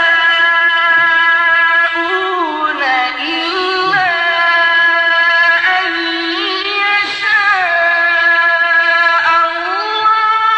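A man's voice in melodic, mujawwad-style Quran recitation, drawing out a long ornamented note. The pitch glides and steps up and down with no break.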